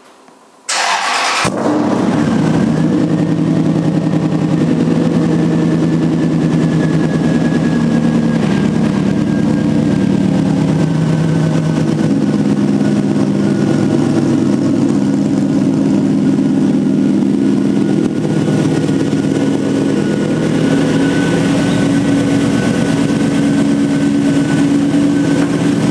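Toyota Tundra pre-runner's engine running as the truck drives, a steady loud drone whose pitch shifts up and down in steps, with a faint high whine slowly falling. It starts after a short gap near the beginning.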